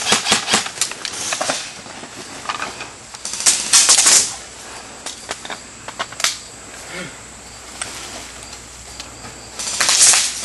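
Airsoft guns firing: a quick string of sharp snaps at the start, then scattered single shots and louder hissing bursts through the rest.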